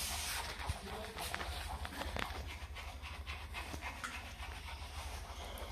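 German shepherd chewing and gnawing on dry wood and bark, with irregular small crunches and cracks.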